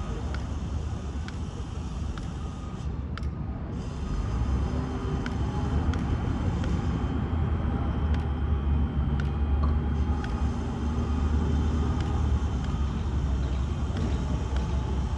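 Steady low rumble of outdoor urban background noise, with a few faint scattered clicks.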